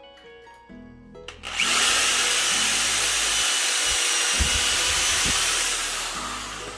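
Power drill driving a screw, running steadily for about four seconds from about a second and a half in, then winding down.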